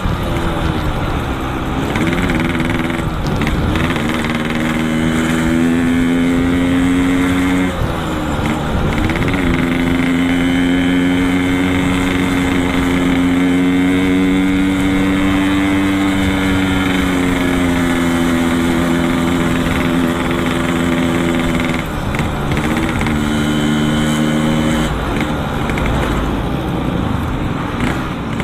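Yamaha RX-King's single-cylinder two-stroke engine running through a Boban C33 aftermarket exhaust while riding. Its pitch shifts up and down a few times in the first ten seconds and again about twenty-two seconds in, and holds steady for a long stretch in between. Low wind rumble sits under it.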